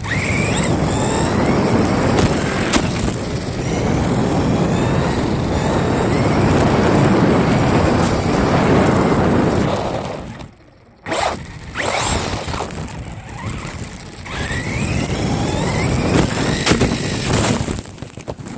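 Onboard sound of a Traxxas Slash 4x4 electric RC short course truck driving fast on pavement: loud, heavy rumbling from the tyres and wind over the camera, with the electric motor's whine rising briefly as it accelerates, near the start and twice in the last third. The sound drops out for about half a second around ten seconds in.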